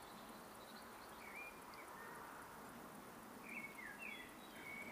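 Faint outdoor background hiss with a few short bird chirps, most of them in the second half.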